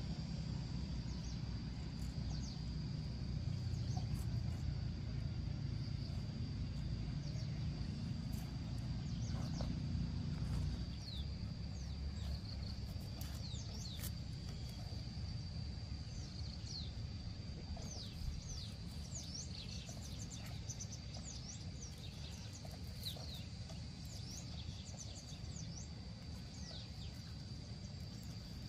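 Outdoor ambience: birds chirping over a steady high-pitched tone, with a low rumble that drops off about eleven seconds in.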